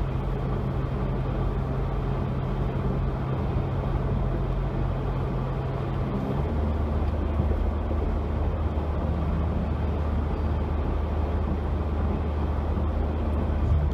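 A vehicle driving, with steady engine and road noise. About six seconds in, the engine's hum drops to a lower pitch.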